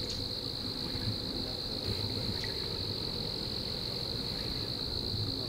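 Insects chirring in one steady, high-pitched drone, over low outdoor background noise.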